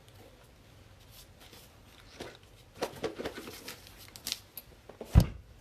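Trading-card boxes and their packaging being handled on a table: rustling and crinkling with scattered light clicks, then a single low thump near the end as something is set down.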